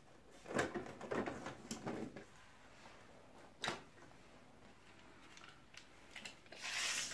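Pen marking lines on a styrofoam box: a run of short scratchy strokes, a single sharp click a little before the middle, and a longer rubbing stroke near the end.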